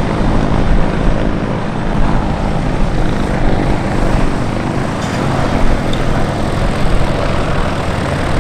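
A Westland Sea King and a Westland Wessex helicopter flying past together: a loud, steady drone of rotors and engines, with a low pulsing beat from the rotor blades.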